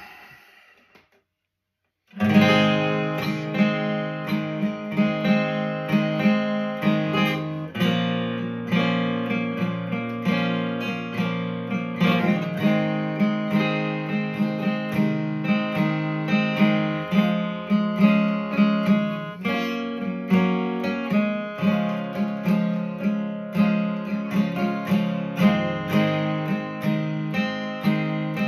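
Acoustic guitar strumming chords in a steady rhythm, starting suddenly about two seconds in after a brief near-silence.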